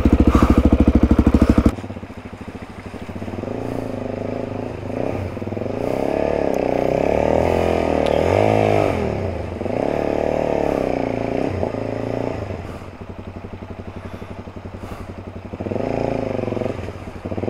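Single-cylinder four-stroke trail bike engine, loud for the first second and a half and then running at low revs, its note rising and falling as the throttle opens and closes over loose river pebbles and rocks, with some clatter from the stones.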